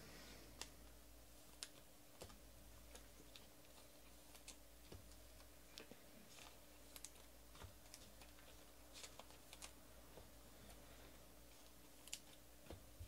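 Faint, irregular light clicks and taps, about twenty spread unevenly, from hands working at a tabletop, over a quiet room hum.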